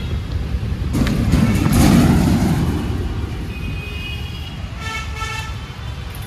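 Road traffic with wind rumble on the microphone. A louder swell of vehicle noise comes about a second in, and a vehicle horn sounds near the end.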